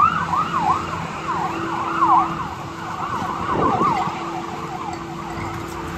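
Ambulance siren in a fast yelp, sweeping up and down about three times a second, thinning out as it moves away after about four seconds. Under it is the steady hiss of heavy rain.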